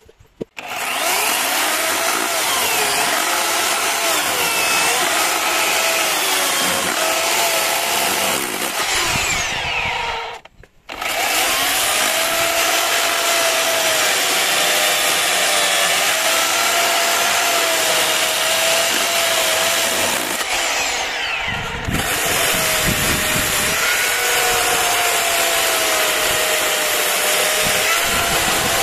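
A small motor-driven power tool running continuously with a slightly wavering pitch, stopping briefly about ten seconds in and dropping off again for a moment around twenty-one seconds.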